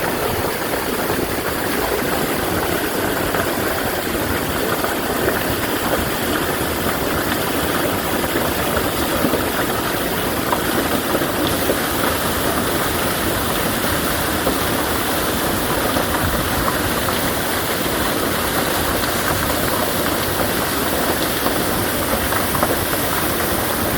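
Mountain valley stream, water rushing in a steady, even stream.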